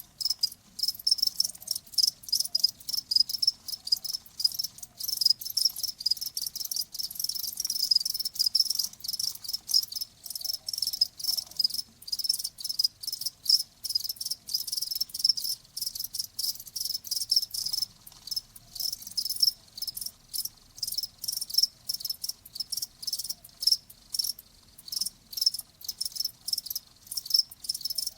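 Crickets chirping: quick, uneven pulses of a high-pitched ringing trill, several a second, going on without a break.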